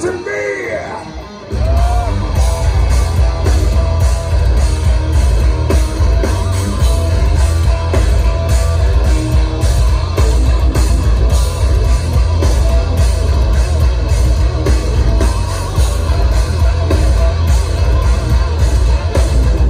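Live heavy metal band played loud and heard from within the crowd. After a brief quieter moment with voices, guitars, bass and drums come in hard about a second and a half in and keep going with a steady driving beat and heavy low end.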